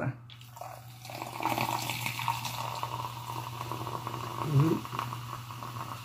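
Coca-Cola poured from a can into a glass packed with ice, the soda fizzing and crackling over the ice, starting about a second and a half in. A short voice sound about four and a half seconds in.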